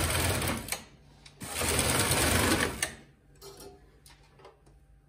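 Silver Reed SK840 knitting machine carriage, coupled to its SRP60N ribber carriage, pushed across the needle beds knitting a row of double-bed jacquard. It makes a rattling slide that ends just under a second in, then a second pass runs from about a second and a half to three seconds in. A few light clicks follow near the end.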